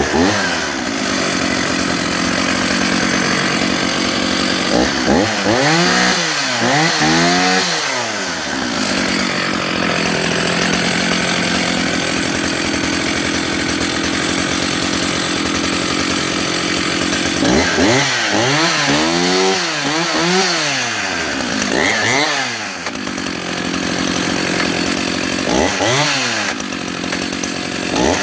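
Stihl 032 AVE 51cc two-stroke chainsaw running at a steady idle just after starting, revved up and let back down several times in three bursts, dropping back to idle quickly each time.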